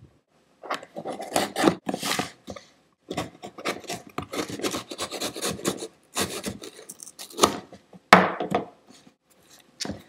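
Gift wrap and packaging being torn and rustled open by hand, in irregular scraping, crackling bursts.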